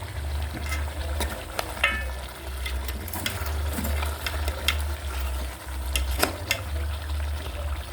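Chicken pieces frying in a pot in their own fat, no oil added, as they are stirred, with many sharp clicks and scrapes of the utensil against the pot. A low rumble comes and goes underneath.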